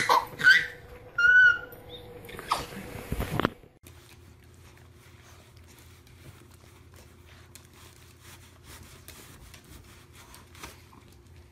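A baby's high-pitched laughing squeals during the first second and a half, then a couple of short knocks. From about three and a half seconds in there is only faint room tone with light shuffling.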